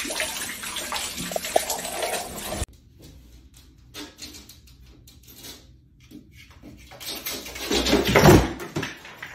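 Water spraying steadily from a shower head with a small parrot bathing in the stream, cut off suddenly after about two and a half seconds. A much quieter stretch follows, with a louder burst of noise about eight seconds in.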